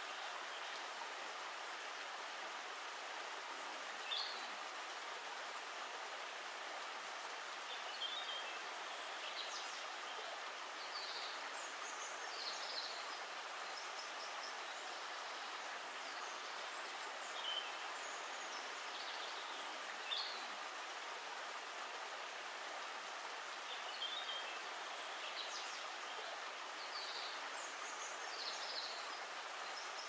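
A shallow river flows over stones with a steady, even rush of water. Short, high bird chirps come through now and then.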